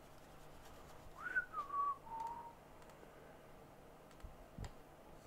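A person whistling a short phrase lasting about a second and a half: a quick rise to a high note, then two lower held notes, each a step down. A couple of faint clicks follow near the end.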